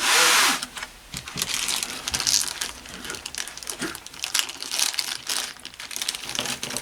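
Plastic packaging crinkling and rustling as a stash of spare electrolytic capacitors is handled and sorted through, loudest in a burst of rustling right at the start, then irregular crackles and small clicks.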